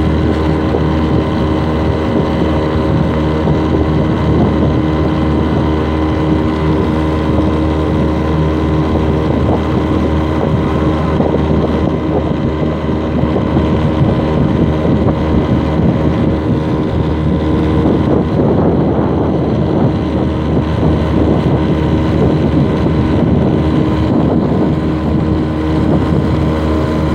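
A motorboat's engine running steadily at an even speed, with a constant low hum.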